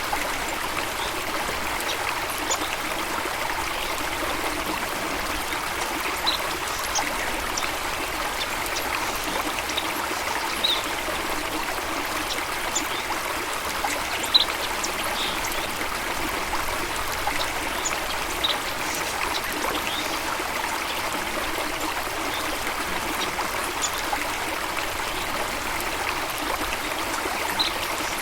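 Running water of a stream, a steady rushing and trickling. Occasional short, high bird chirps sound over it.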